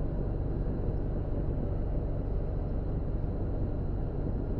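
Steady low background hum with an even haze of noise, unchanging throughout and with no distinct clicks or knocks.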